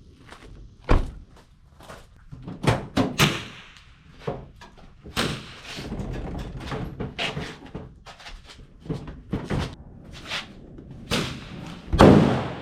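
A run of irregular knocks and clacks from hard objects being handled and set down, with the loudest slam near the end.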